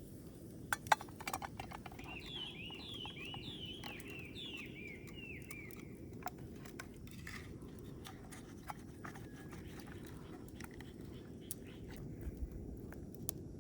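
A small bird sings a run of about eight short, repeated downward-slurred notes from about two to six seconds in, over a steady low rumble. A couple of sharp clicks near the start, and a few light taps later, are the loudest sounds.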